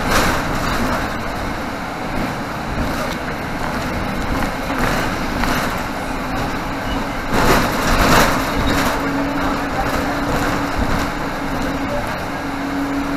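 Inside a 2018 Nova Bus LFS diesel city bus under way: steady engine and road noise through the cabin, with a couple of louder jolts about eight seconds in and a steady hum coming in a little after.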